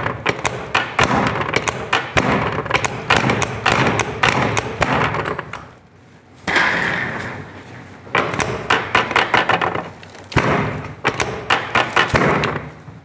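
Chiropractic drop table sections dropping under the practitioner's thrusts, giving repeated sharp knocks in quick clusters of several a second, with short lulls about six seconds in and again near ten seconds.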